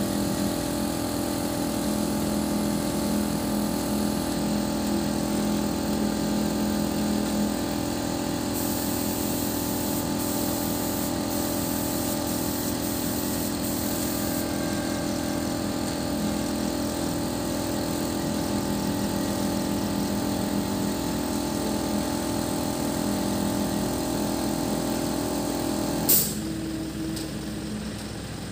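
An engine running steadily at constant speed. A sharp click comes near the end, after which the engine hum drops away.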